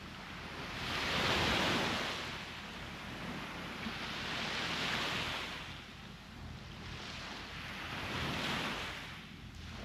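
Sea waves washing ashore, three surges in a row, each swelling and fading, about three to four seconds apart.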